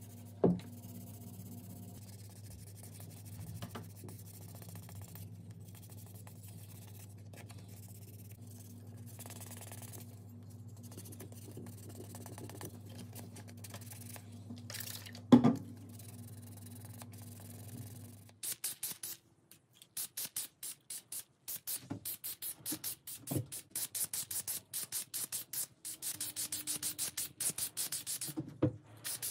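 Sandpaper rubbing over a painted metal drill housing over a steady low hum, with two sharp knocks. From about two-thirds of the way in, spray paint hisses in rapid short bursts over the drill parts.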